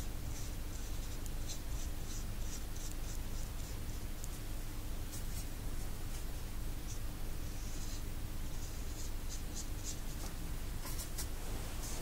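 Small paintbrush dragging acrylic paint across paper in short, light scratchy strokes that come in quick clusters with brief pauses, over a steady low hum.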